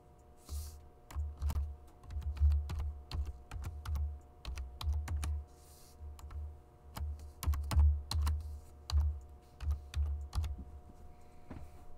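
Typing on a computer keyboard: irregular clicking keystrokes in short runs with brief pauses, each with a dull thud.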